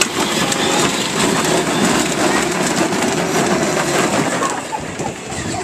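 A child's ride-on toy truck driving, its hard plastic wheels and drivetrain giving a steady, loud crunching rattle that falls away near the end as it slows.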